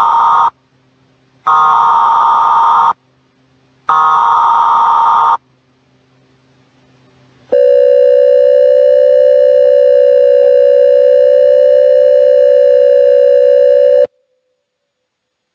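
Emergency Alert System-style broadcast alert: three identical short, buzzy header bursts about a second apart, then, after a brief pause, a long steady attention tone of about six and a half seconds that cuts off abruptly.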